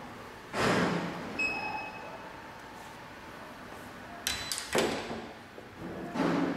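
Wheel balancer being handled with a motorcycle wheel mounted: a sharp knock about half a second in, a short high electronic beep from its control panel just after, then a cluster of clicks and two more knocks near the end.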